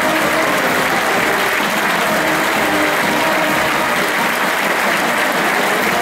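Large crowd applauding steadily, a dense, unbroken clapping that neither builds nor fades.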